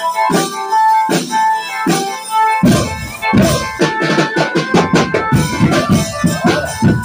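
Drum band music: a melody over light, evenly spaced beats, then heavy, rapid drumming comes in about two and a half seconds in.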